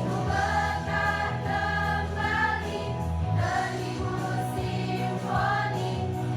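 A choir singing long held notes over steady low bass notes.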